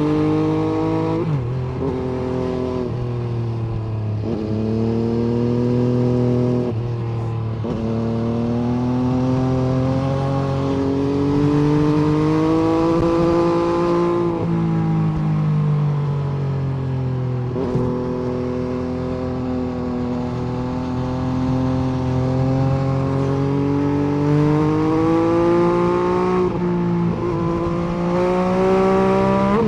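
MV Agusta F3 800's three-cylinder engine running under way, its pitch climbing as it accelerates and then dropping sharply at each gear change, several times over, with stretches of easing off between.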